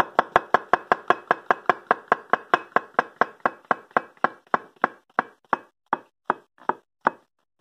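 Gyuto chef's knife chopping mushrooms in rapid up-and-down strokes on a wooden cutting board, each stroke a sharp knock of the blade on the board, about five or six a second at first and slowing to about three a second near the end.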